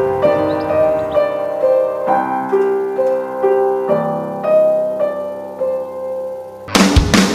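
Background music: a slow solo piano melody of held single notes that dies away. Just before the end, loud rock music cuts in abruptly.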